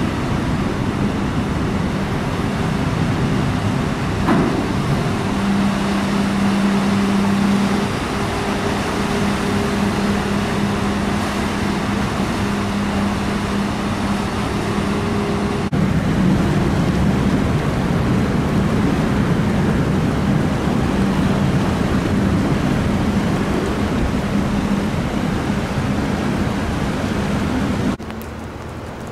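Car ferry's engines and propellers running, heard on deck: a steady low hum over a loud, even rush of machinery and churning water. The sound drops sharply near the end.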